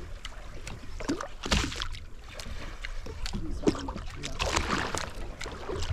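Sounds aboard a fishing boat at sea: a steady low rumble with many irregular clicks and knocks.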